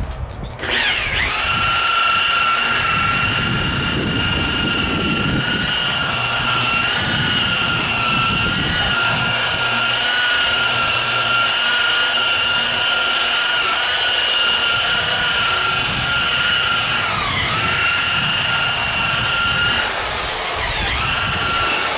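DeWalt rotary buffer with a wool pad spinning up about a second in, then running with a steady high whine while it works cutting compound into the car's dry paint. It slows briefly late on and winds down near the end.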